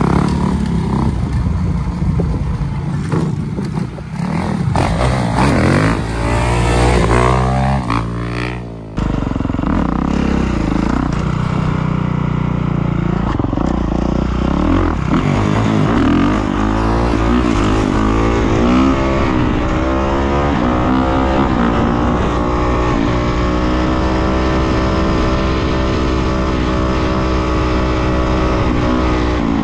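Kawasaki KX450 dirt bike's single-cylinder four-stroke engine revving up and down as it accelerates and wheelies. Near the end it settles into a steady high pitch, held on the throttle through a long wheelie.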